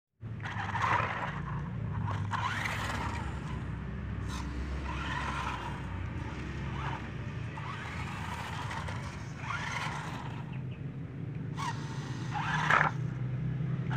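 Toy RC 4x4 rock crawler driving on gritty concrete: a steady low hum from its motor and gears, with short bursts of scraping and crunching from its tyres every few seconds.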